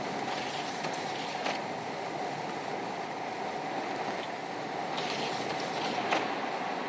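Steady road and engine noise heard inside a car driving on a snow-covered road, with a steady hum and a few faint clicks.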